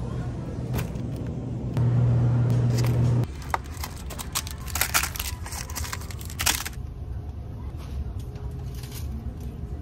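Supermarket background: a steady low hum that changes abruptly a few times and is loudest for about a second and a half near the start. Around the middle come a cluster of short rustles and knocks as boxes are handled off a shelf.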